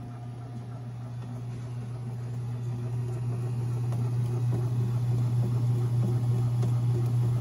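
Bread machine motor running with a steady low hum as its paddles knead dough. The hum grows louder over the first few seconds.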